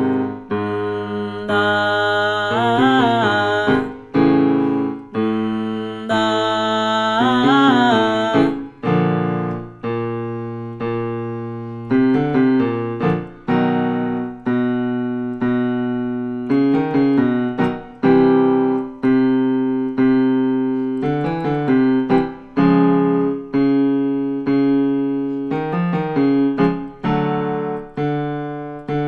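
Piano playing a vocal warm-up exercise, chords stepping from note to note in a repeating pattern. For about the first eight seconds a voice glides up and down over the piano, then the piano carries on alone.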